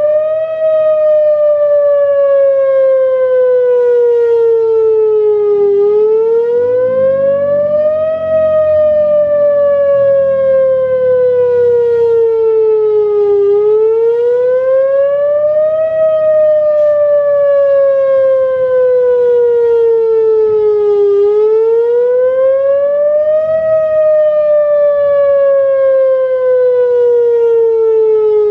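Whelen WPS-2904 electronic outdoor warning siren sounding a wail test signal. Its steady tone rises quickly over about two and a half seconds, then falls slowly over about five, repeating about four times.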